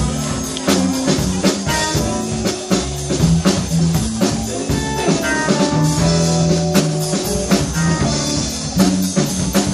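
Live blues band playing: electric guitar over drum kit and keyboard, with a steady beat.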